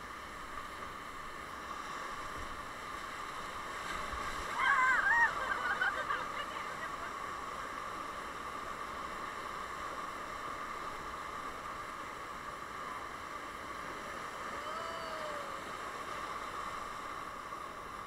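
Steady rush of river rapids around an inflatable raft, with a person's voice calling out briefly about five seconds in.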